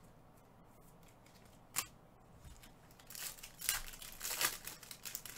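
Foil wrapper of a Prizm basketball jumbo card pack crinkling and tearing as it is opened by hand, after a single sharp click a little under two seconds in.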